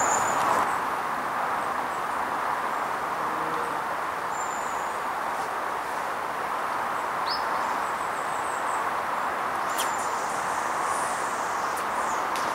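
Steady background hiss with small birds chirping now and then high above it, and a single sharp click about ten seconds in.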